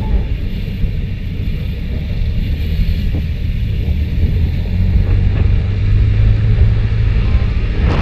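Motorcycle engine running under a heavy low rumble of wind on the microphone while riding; the engine note grows louder about five seconds in as the bike pulls away.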